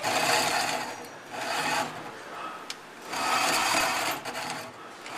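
Hole saw on a handheld drill cutting into a steel plate, grinding in three spurts with short pauses between, the longest near the end.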